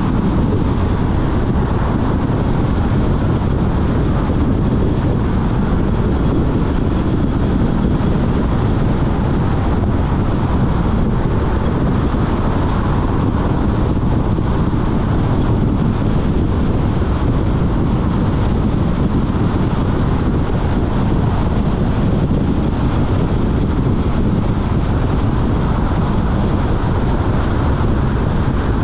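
Steady wind noise on the microphone, a loud, low rumble that never lets up.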